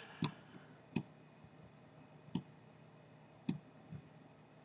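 Four separate sharp clicks of a computer mouse, irregularly spaced about a second apart, with a fainter fifth click near the end.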